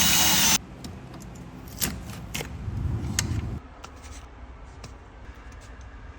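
Loud music stops abruptly, followed by a few light clicks over a low rumble that fades away a little past halfway through.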